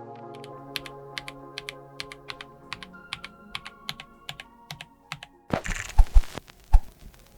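Mechanical keyboard with TTC x Pantheonkeys PT Black linear switches being typed on: sharp keystrokes in an even rhythm of about four to five a second, over soft background music. A little over five seconds in come a few louder, deeper knocks.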